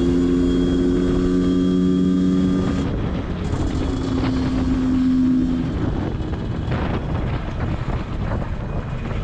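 Honda CRM125's two-stroke single-cylinder engine running at steady revs while riding, its drone easing off about three seconds in, returning briefly, then fading under wind and road noise from about the middle on.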